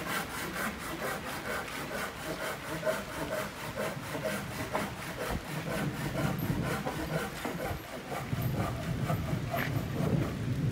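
Saw cutting through timber in quick, even back-and-forth strokes. A low rumble joins in about halfway through.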